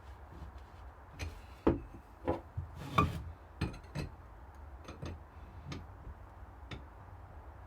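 Irregular knocks and clicks of a router and hand tools being handled while the router is set up under a bench-top router table, about ten in all, the loudest in the first half.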